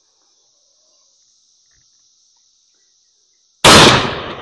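Steady high drone of insects, then about three and a half seconds in a single shotgun shot: a 3.5-inch 12-gauge single-shot (NEF Pardner SB1, cylinder bore) firing a 1-ounce slug over 80 grains of homemade black powder. The report is very loud and trails off over more than a second.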